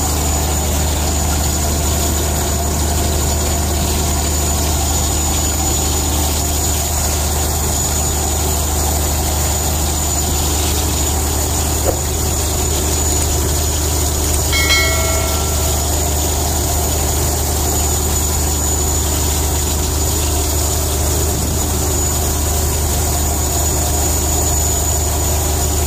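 Fishing boat's engine running with a steady low drone. A short ringing tone sounds about fifteen seconds in.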